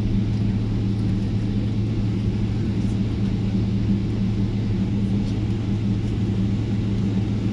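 Steady cabin noise inside a Boeing 777-300 rolling along the runway after touchdown: the drone of the engines and airframe, with a constant low hum under a rushing hiss.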